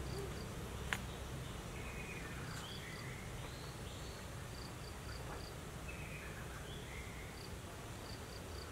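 Faint outdoor ambience of insects chirping in short, high, repeated notes, with a few brief sliding chirps and a single sharp click about a second in.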